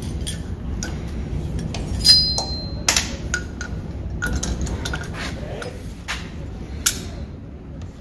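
Metal clinks and knocks from a Honda GL1500 front fork being worked by hand, the fork slider and bushing being driven down onto the tube, over a steady low hum. The loudest is a sharp ringing clink about two seconds in, with more knocks near three and seven seconds. The part is binding and going in hard instead of sliding in.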